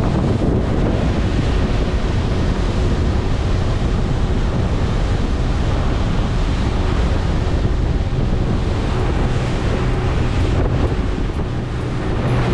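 Wind buffeting the microphone over the rush of water along the hull of a fishing boat running at speed, with a steady engine hum underneath.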